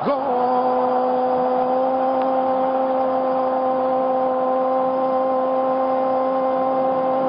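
Football stadium crowd noise with a steady held tone over it that stays at one pitch throughout.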